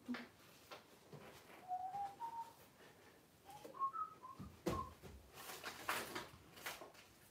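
A person whistling a short tune of about eight quick notes that climb in pitch, followed by several sharp knocks.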